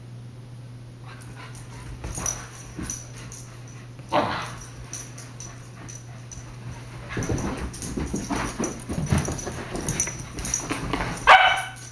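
Husky puppies play-fighting: scuffling and thumping on upholstery, broken by short dog yips, one about four seconds in and a sharp, loud one near the end.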